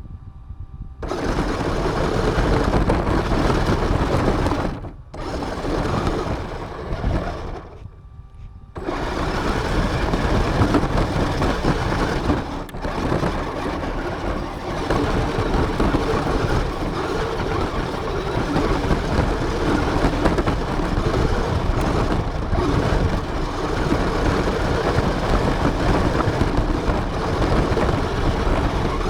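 RC car driving with its motor running, a steady buzzy mechanical noise that drops away briefly about five seconds in and again around eight seconds in.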